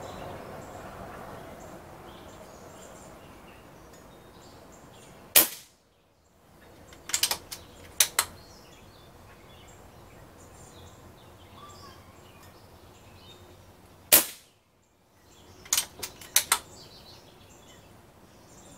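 Umarex Gauntlet .22 PCP air rifle fired twice, about nine seconds apart, each shot a sharp crack. A couple of seconds after each shot comes a short run of quick clicks as the bolt is worked to load the next pellet.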